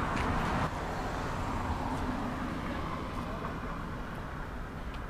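Road traffic: a car driving past on the street, its tyre and engine noise slowly fading.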